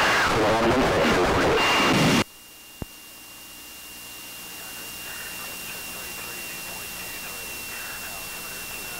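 Light aircraft's radio and intercom: a loud burst of static with a garbled voice in it cuts off sharply after about two seconds. A click follows, then a steady intercom hiss with a thin high whine.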